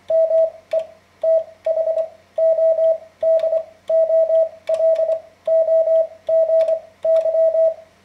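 Morse code sent by hand on a semi-automatic telegraph key (bug): a steady mid-pitched sidetone keyed in about a dozen quick groups of dits and dahs, with the key's contacts clicking at the start of the tones.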